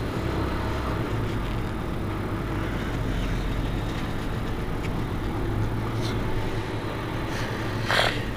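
Mercedes-Benz Citaro C2 city bus's diesel engine idling steadily while the bus stands at a stop, with a brief sharp noise near the end.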